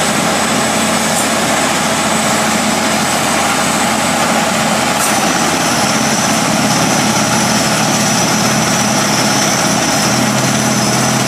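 Truck-mounted water-well drilling rig running: its engine and drilling machinery make a loud, continuous drone with a steady high whine, which changes pitch about halfway through.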